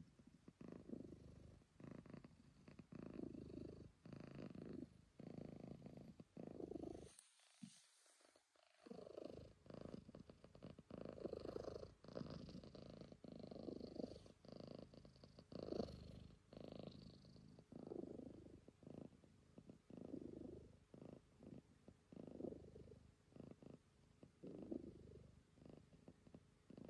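A calico cat purring in pulses that follow its breathing, about one a second, with a short break about seven seconds in.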